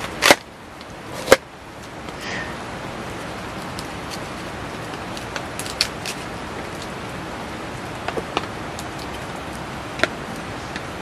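Heavy rain falling steadily, an even hiss with scattered sharp ticks. Two louder sharp knocks come within the first second and a half.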